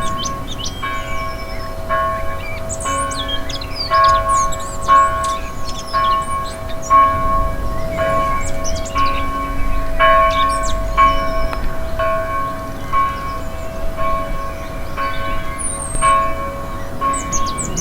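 Church bell tolling, struck over and over at about one stroke a second, each strike ringing on into the next. Birds twitter and chirp over it.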